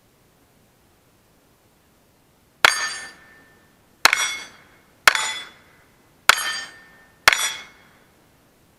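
Five pistol shots from a Browning Buck Mark .22 LR, about a second apart, each followed by the metallic ring of a hit steel target plate that dies away within a second.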